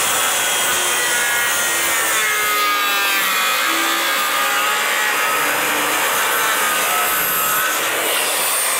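Corded circular saw cutting through a wooden rafter tail, a plumb cut made with the blade upright. It runs steadily and loudly throughout, its motor whine wavering in pitch as the blade works through the wood.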